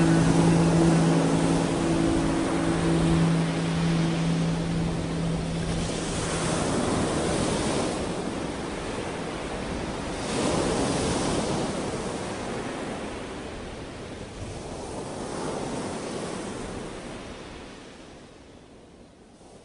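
Ocean surf washing in: slow swells of wave noise, about three of them a few seconds apart, fading away toward the end. A held low chord dies out in the first few seconds.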